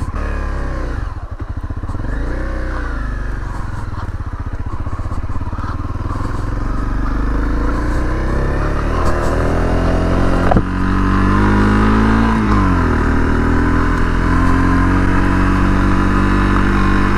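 Honda CRF250L's single-cylinder four-stroke engine pulling away along a gravel road. The revs climb, drop sharply about ten seconds in and again near twelve seconds as it changes gear, then hold steady at a cruise.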